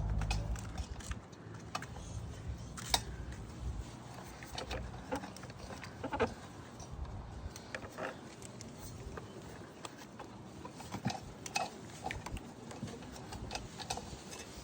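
Irregular small clicks, taps and clinks of metal and plastic mower parts being handled while the throttle linkage and engine cover are fitted back onto a lawn mower engine. A low rumble fades out in the first second.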